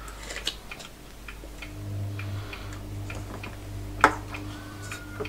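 Steady low electrical hum from a bench power supply driving current into a shorted power-supply board, coming in about a second and a half in, with scattered faint ticks and one sharper click about four seconds in.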